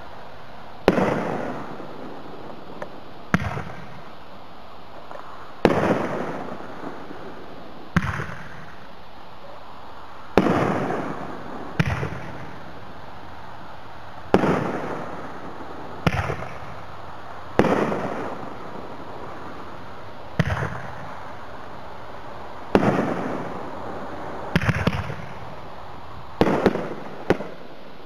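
T-Sky "Winner" multi-tube aerial firework cake firing shot after shot, one sharp bang about every two seconds. Each bang is followed by a tail that fades over a second or so, and a couple come as quick doubles near the end. A steady hiss runs between the shots.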